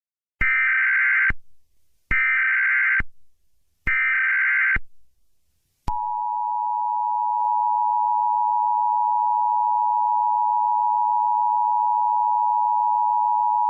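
Emergency Alert System tones: three short bursts of SAME header data, each just under a second with a gap of about a second between them. About six seconds in, the steady two-tone EAS attention signal (853 and 960 Hz) follows.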